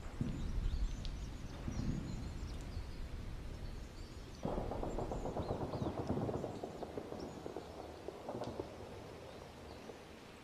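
Battlefield ambience sound effect: a low rumble of distant fighting with faint bird chirps over it. A heavier rumble swells in suddenly about four and a half seconds in and fades away over the next few seconds.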